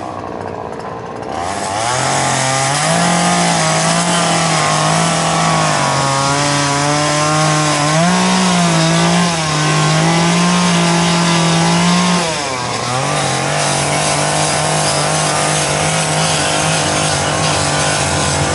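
Two-stroke gas chainsaw used for wood carving, running low for about a second and a half, then revved up and held at high speed to the end. Its pitch sags and recovers a few times, with a short drop about twelve seconds in.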